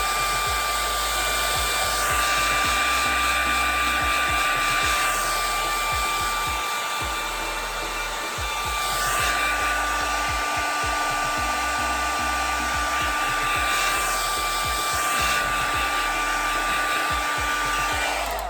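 Handheld hair dryer blowing steadily with a high whine, its loudness swelling and dipping a little as it moves, then cutting off near the end.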